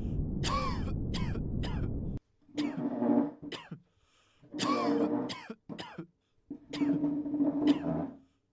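Distraction noise of people coughing and clearing their throats. A steady low background rumble with several short coughs cuts off suddenly about two seconds in, followed by three longer bouts of coughing and throat clearing.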